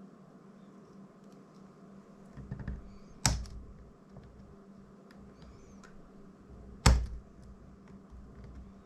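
Small clicks and scrapes of hand tools picking at hot glue on a DJI Mini 2's plastic frame, with two sharp knocks a few seconds apart, over a steady low hum.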